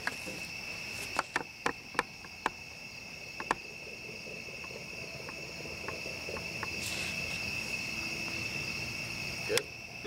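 Crickets chirring in a steady high, unbroken drone, with a handful of sharp clicks and taps in the first few seconds.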